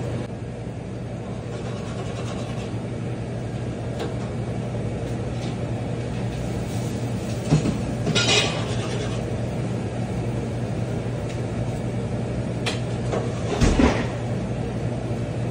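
Steady hum of a commercial kitchen's exhaust hood and equipment. Metal pots, pans and utensils clatter a few times, around eight seconds in and again near the end.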